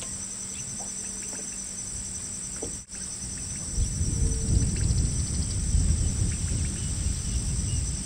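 Insects trilling steadily at a high pitch, one of them with a fast pulsing trill. From about four seconds in, a low rumbling noise joins them and gets louder.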